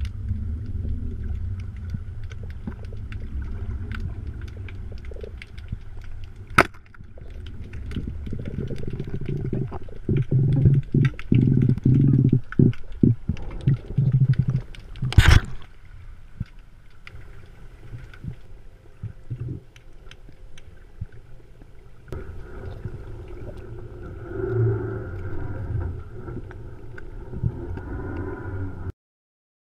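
Muffled low underwater rumble picked up through a camera's waterproof housing, with scattered clicks throughout. A sharp knock comes about a fifth of the way in and a louder one about halfway. Just before that second knock there is a stretch of louder, irregular gurgling. The sound cuts off abruptly just before the end.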